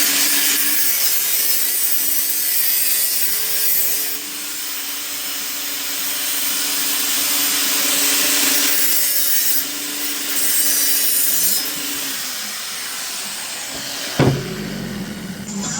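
Handheld power tool working metal: a steady motor hum under a loud hiss that swells and eases several times as the tool bears on the work. A single thump comes near the end.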